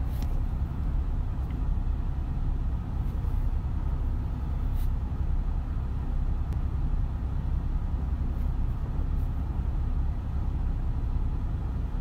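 Steady low rumble of a car's running engine heard from inside the cabin.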